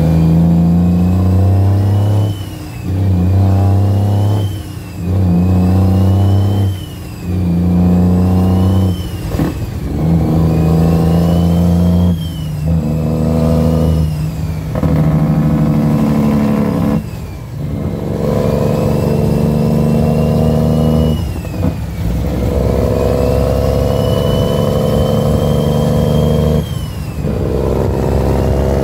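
International truck's Cummins L10 diesel engine pulling through the gears, with a short drop in loudness at each shift every two to three seconds. A high whine rises with each gear and falls at the shift.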